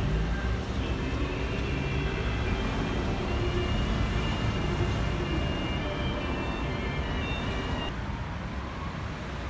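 City street traffic: vehicle engines and tyres running steadily as a low rumble, with one engine's pitch rising in the first second. The background changes abruptly about eight seconds in.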